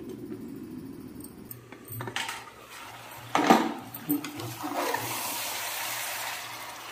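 Metal lid clanking onto an aluminium pressure cooker about three and a half seconds in, as chicken cooks inside on a high gas flame. From about five seconds in, a steady hiss of sizzling and steam builds from the covered cooker.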